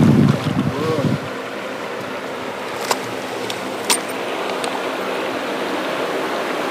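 Steady rush of shallow river water flowing over the riffle. Two short sharp ticks come about three and four seconds in.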